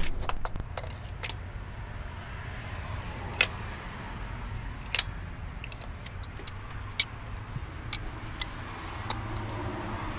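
Irregular sharp metallic clicks and clinks of hand tools and sockets being handled, about a dozen spread out, over a steady low hum.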